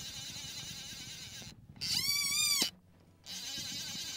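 Fly reel's clicker drag whirring as a hooked trout pulls line off the spool: one loud high whine lasting under a second, about two seconds in, rising as the spool speeds up and dropping away sharply as it stops. A steady hiss lies under it.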